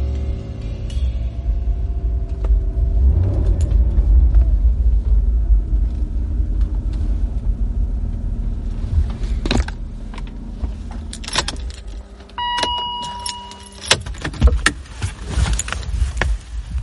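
Motor vehicle driving, heard from inside the cabin: a steady low engine and road rumble. In the second half come sharp clicks and rattles, and a held tone sounds for about a second and a half near the end.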